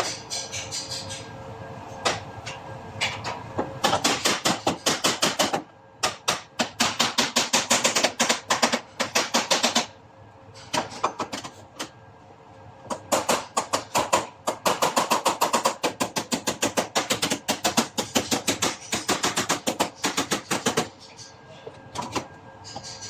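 Body hammer tapping sheet metal over a dolly, in quick runs of about five strikes a second with short pauses between the runs.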